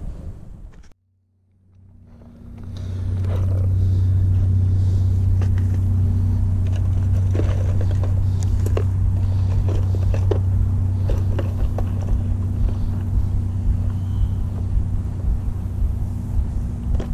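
After a moment of silence about a second in, a steady low mechanical drone, like a running engine, fades in and holds, with scattered light clicks and taps over it.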